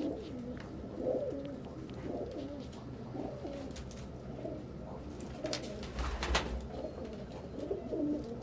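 Several domestic pigeons cooing at once, their low calls overlapping without a break. A few sharp clicks and a brief low thump come about six seconds in.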